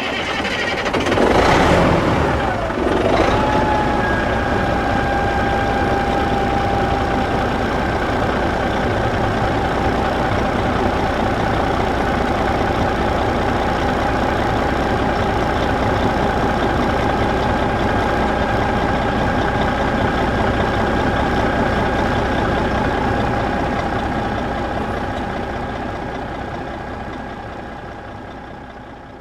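Diesel engine surging briefly in the first few seconds, then settling into a steady idle with a constant high whine over the running. It fades out near the end.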